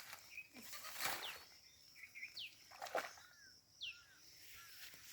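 Outdoor rural ambience: a bird's short falling call repeats about every second and a half over a steady high insect hum. Two brief rushes of noise come about one and three seconds in, the second the loudest.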